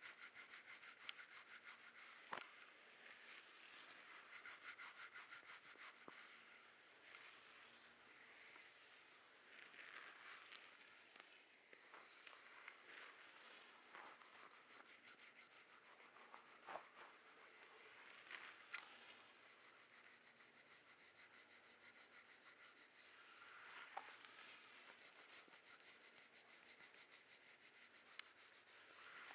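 Soft, close-up rubbing and scratching strokes of a hands-on massage, a continuous fine scratchy hiss with a few light clicks.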